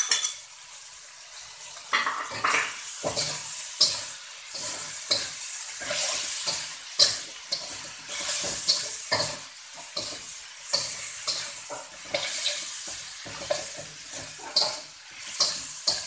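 Bean sprouts, meat and fish cake stir-frying in a steel wok: a metal slotted spatula scrapes and clacks against the wok at irregular intervals over a steady sizzle.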